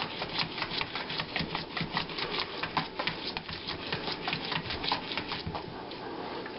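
A Border collie–Labrador cross puppy digging at a small rug on a vinyl floor, its claws scratching in a fast run of strokes, several a second, that stops near the end.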